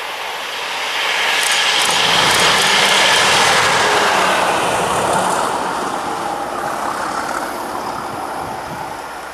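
Colas Rail diesel locomotive passing at speed, its engine and wheels on the rails building to a peak about three seconds in, then fading as it runs away. A few sharp wheel clicks come near the loudest point.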